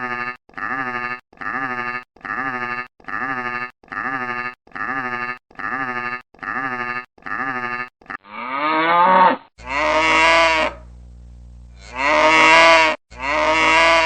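Farm animals calling: nine short, identical calls repeated at an even pace of about one and a half per second. Then comes one rising call and three longer, louder calls.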